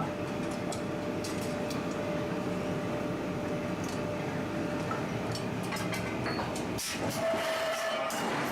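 Forge shop machinery running: a steady mechanical rumble with a constant hum and scattered metallic clicks and knocks. It dips briefly just before seven seconds in, then returns with a slightly higher hum.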